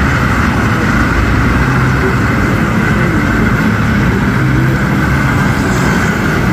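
Steady, loud engine drone with a low hum, unchanging throughout: motor vehicles running at idle.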